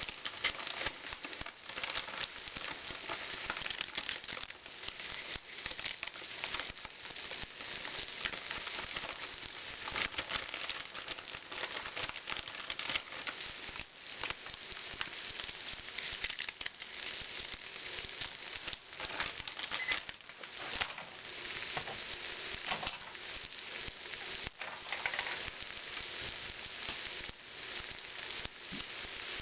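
Scrambled egg, salsa and corn chips sizzling in a hot skillet while being stirred, a steady crackling fry with small clicks.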